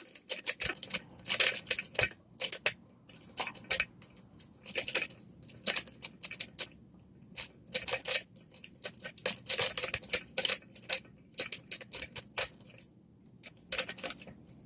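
Metal lock pick scraping and clicking against the pins inside a pin-tumbler lock, a rapid irregular patter of small ticks and clicks. The lock is held in a deep false set as spool pins are worked.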